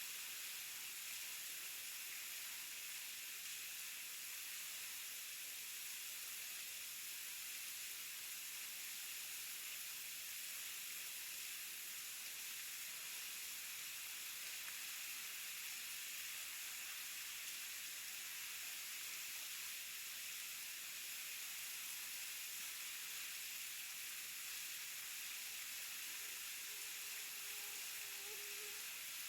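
Waterfall's steady rushing hiss of falling water, even and unbroken, mostly high in pitch.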